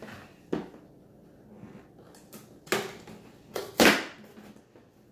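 Cardboard toy box being handled and opened by hand: a few separate scrapes and knocks of cardboard, the loudest a short rasp near the end.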